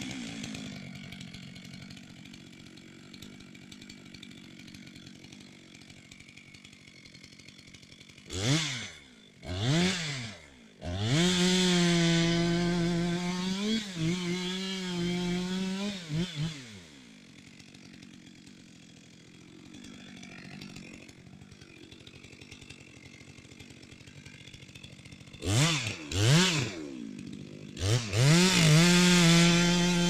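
Two-stroke chainsaw idling, revved twice, then run at full throttle cutting into the base of a tree for about five seconds, its pitch sagging under load. It drops back to idle, is revved twice more, and goes back to full throttle cutting near the end.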